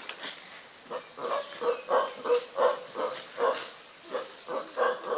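Howler monkeys calling with a rhythmic series of short grunts, about three a second.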